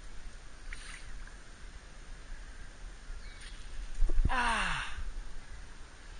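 A man's voice crying out a long "nooo" about four seconds in, its pitch falling steeply over about a second, in dismay.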